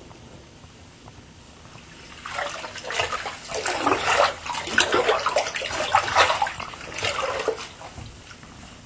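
Water sloshing and splashing in a bubble bath, a run of irregular splashes starting about two seconds in and dying away near the end.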